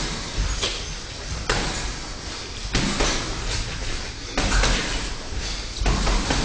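Boxing gloves landing punches on a sparring partner's gloves and mitts: several sharp slaps at irregular intervals, some in quick pairs.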